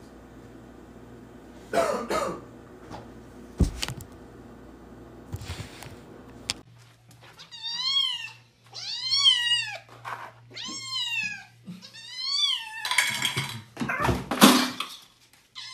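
Kitten meowing repeatedly: about four high, arching meows in a row, each under a second long. Near the end come two loud bursts of rushing noise.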